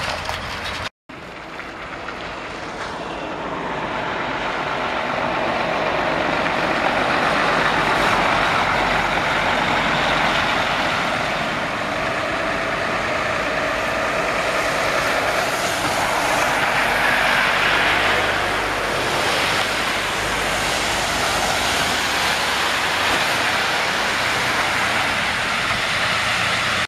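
Articulated lorries driving past on a wet road: diesel engines running and tyre noise, a steady wash of sound that builds over the first several seconds after a brief gap about a second in.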